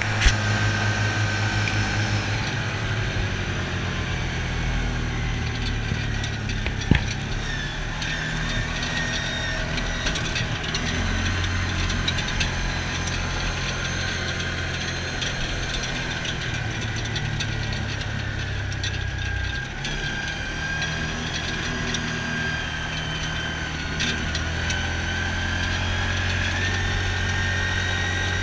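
Yamaha Rhino side-by-side's single-cylinder engine running steadily while driving, its note shifting a few times with the throttle. A single sharp knock comes about seven seconds in.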